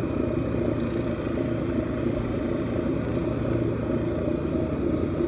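Lapidary grinding wheel running steadily at 1000 grit, with a stone held against it to take down its sharp edges.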